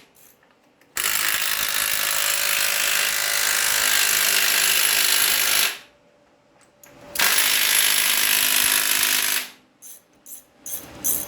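A power tool runs in two bursts, about four and a half seconds and then about two seconds, while bolts are run in to fasten an engine block to a tractor's frame.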